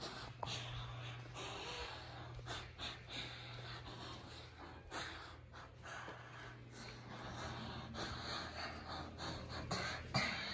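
A person breathing heavily in repeated gasping breaths, with soft footfalls of socked feet on rug and tile, over a low steady hum.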